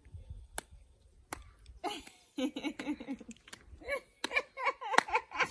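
Two women laughing and exclaiming, with sharp hand claps scattered through.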